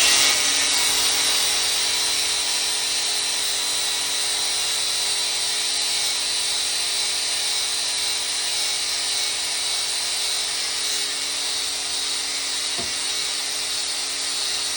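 Power grinder with a coarse 24-grit resin disc grinding the edge of a forestry mulcher's planer tooth: a steady motor whine over a continuous grinding hiss, holding an even level throughout.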